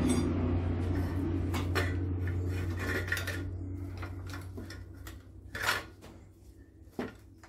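Several light metallic clinks and taps from engine parts being handled, over a steady low hum that fades away over the first five seconds or so.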